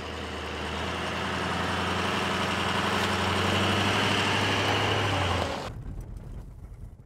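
Ford Excursion SUV driving past on a gravel road, its engine growing louder as it comes by. It cuts off suddenly about five and a half seconds in, leaving a quieter low rumble.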